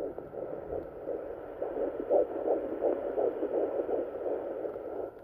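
Fetal heartbeat from a Sonoline fetal doppler's speaker at 11 weeks of pregnancy: quick, even pulses, about two and a half a second.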